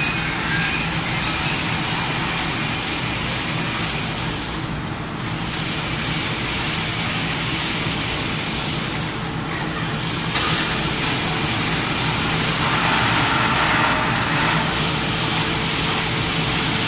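Factory machinery running steadily with a low hum and a hiss. A sharp click about ten seconds in, after which the hiss is a little louder.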